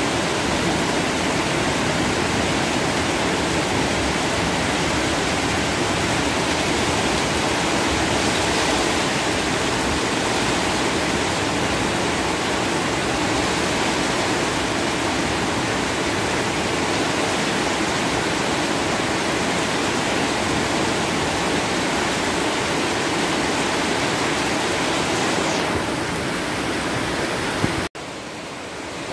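Heavy rain pouring down steadily on trees and a flooded street, a dense, even hiss. About two seconds before the end it cuts off abruptly and carries on softer.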